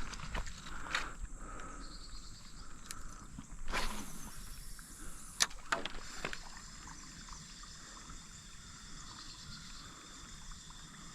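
Someone wading through a shallow creek: a few sharp splashing steps in the first half, then the quieter wash of moving water.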